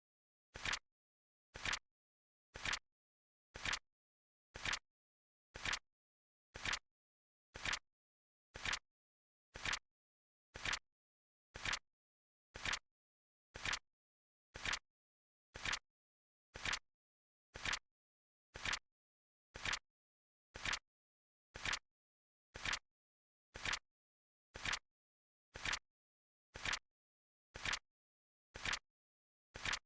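Flip clock sound effect: a short, sharp flip click once a second, evenly spaced, with silence between clicks.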